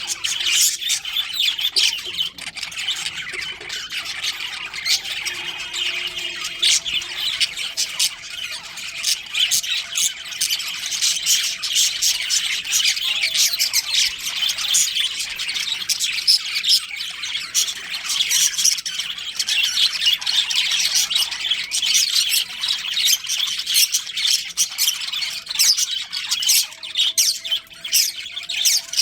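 A colony of budgerigars chattering and squawking, many birds calling at once in a dense, unbroken stream of short, high chirps.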